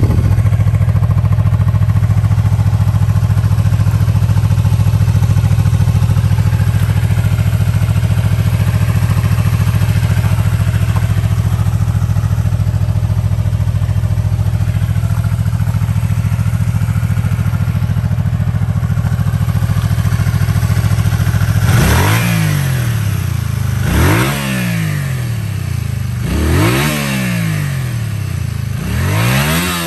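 Honda VT250F's V-twin engine idling steadily, then revved in four short throttle blips after about twenty seconds, each rising in pitch and falling straight back to idle.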